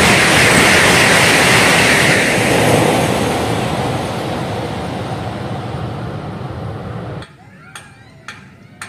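KCIC400AF high-speed electric train passing at speed: a loud rush of wind and wheel-on-rail noise that fades as the train recedes. The sound then cuts off abruptly, and a few sharp clicks follow near the end.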